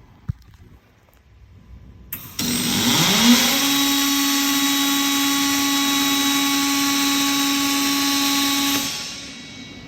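Electric power tool motor spinning up with a rising whine, running steadily for about six seconds with a hiss, then switching off near the end.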